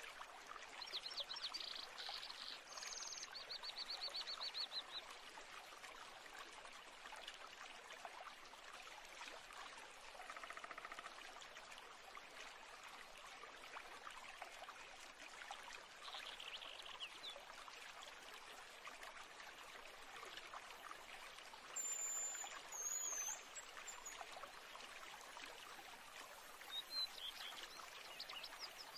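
Faint ambience of steadily running, trickling water, with birds chirping and trilling a few times.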